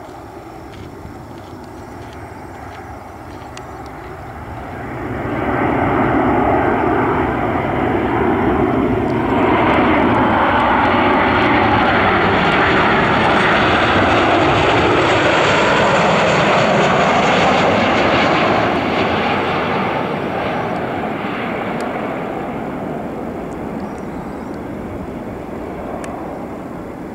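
Boeing 737-800 airliner on landing approach passing low overhead on its two CFM56-7B turbofan engines. The jet noise swells about five seconds in and stays loud for more than ten seconds. It then fades, falling in pitch as the aircraft moves away.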